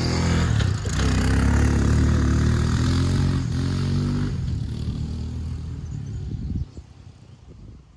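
A small motor vehicle's engine revving as it drives off across a dirt yard. It slowly weakens, then drops away abruptly near the end.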